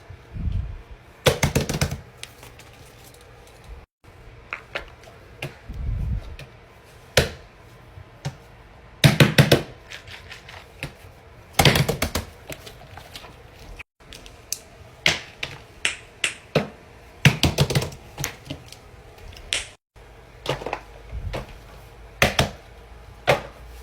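Plastic fidget toys being handled, with rapid runs of sharp clicks and pops in clusters and a few dull thuds.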